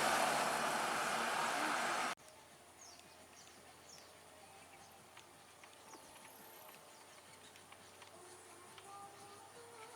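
Loud road noise from a vehicle that cuts off abruptly about two seconds in. It gives way to faint outdoor ambience: scattered short bird chirps over a thin steady high tone, with low calls growing more frequent near the end.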